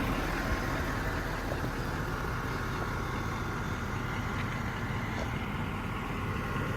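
Ford F550's 6.7 Power Stroke V8 diesel engine idling steadily.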